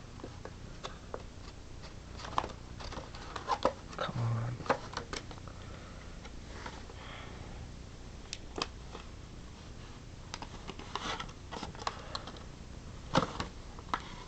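Crinkling plastic blister packaging being handled, with irregular sharp clicks and crackles as fingers work at it to pull out a tiny USB receiver.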